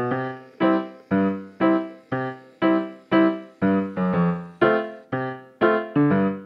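Background music: keyboard chords struck evenly about twice a second, each one dying away before the next.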